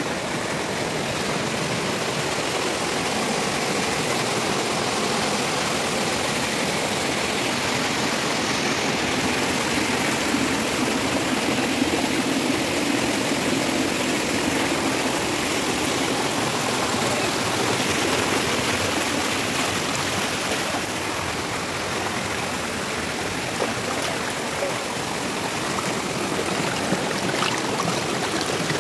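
Water of a small forest waterfall rushing and splashing steadily as it slides over rock slabs and drops between boulders, heard up close.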